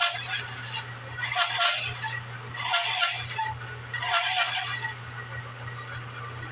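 Homemade 14-inch bandsaw running with a steady hum, its blade on bare wheels with no tires. The blade cuts 3/8-inch cherry in four short rasping strokes about a second and a half apart, then runs free near the end.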